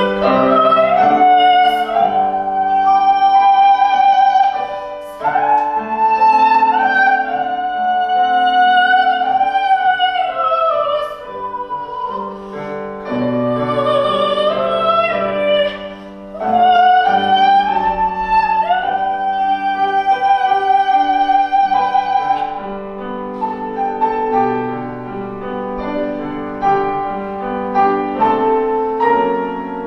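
Soprano singing a Korean art song in classical style with piano accompaniment, holding long notes with vibrato. Over the last several seconds the voice gives way and the piano carries on.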